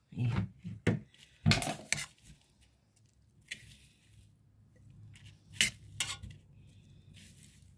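Kitchen utensils and dishes clinking as food is handled: about seven separate light clinks and knocks at uneven intervals, the strongest about one and a half seconds in.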